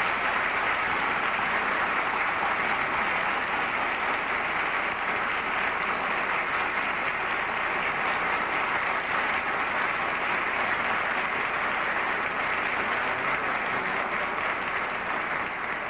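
Studio audience applauding steadily, easing off slightly near the end.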